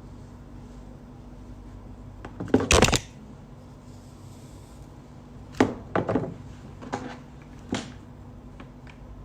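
Several sharp knocks and clattering handling sounds over a steady low hum, the loudest a quick cluster about two and a half seconds in, then four or five single knocks spaced about a second apart.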